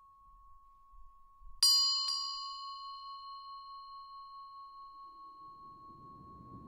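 Tibetan-style singing bowl struck twice about half a second apart, then ringing on in one long tone that wavers as it fades.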